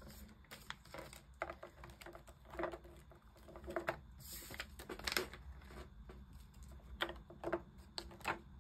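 Irregular soft crinkles, taps and clicks of polymer banknotes and clear plastic binder sleeves being handled: notes slid into a plastic pocket and the sleeve lifted over.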